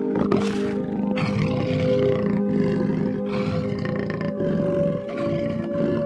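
A big cat roaring several times over calm background music with held notes.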